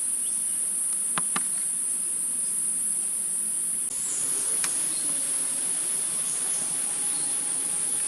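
Insect chorus in the forest: a steady, high-pitched drone that holds unbroken throughout, with a couple of faint clicks about a second in.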